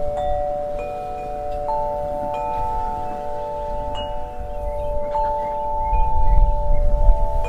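Wind chimes ringing: clear metal tones struck at irregular moments, overlapping and ringing on for seconds. Low wind rumble on the microphone swells near the end.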